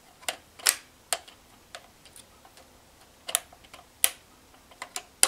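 Polaroid SX-70 folding camera handled in the hands, its parts clicking into place: a few sharp, separate clicks spread unevenly, the loudest just under a second in and about four seconds in.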